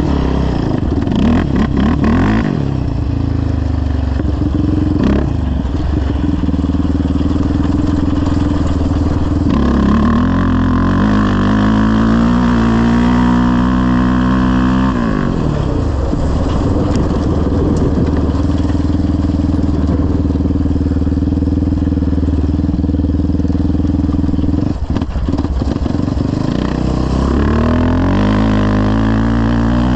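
Yamaha Raptor 700R quad's single-cylinder four-stroke engine, breathing through a full CT Racing exhaust, running under way with the revs climbing and dropping several times as the throttle is worked.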